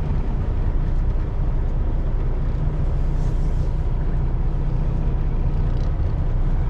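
Peterbilt 579's Cummins ISX15 diesel engine running at low speed, a steady low rumble heard from inside the cab as the truck creeps through a lot.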